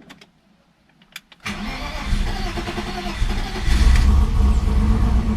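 BMW E36 engine cold-starting after sitting for months: a couple of clicks, then the engine catches about one and a half seconds in and keeps running, swelling in level around four seconds in.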